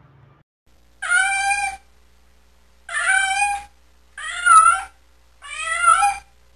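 A domestic cat meowing four times, each meow under a second long with short pauses between.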